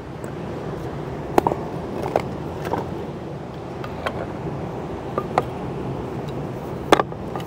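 Steady rushing background noise with a scatter of about seven short, sharp clicks and knocks; the loudest come about a second and a half in and near the end.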